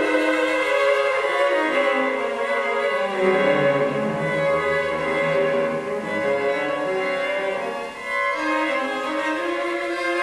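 Solo cello and string quartet playing contemporary classical music: sustained bowed notes in several voices, with a lower line sliding down into the low register around the middle and climbing back up.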